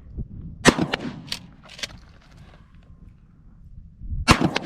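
Two shots from a Remington 870 pump-action shotgun, about three and a half seconds apart; the second is a slug. Two smaller sharp clacks between them are the pump being worked to chamber the next round.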